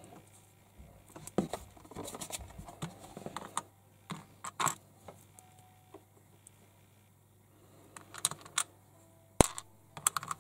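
Small plastic toy-figure parts being handled and fitted together: irregular clicks and rattles, busiest in the first few seconds, then a lull, then a few more clicks with one sharp snap near the end.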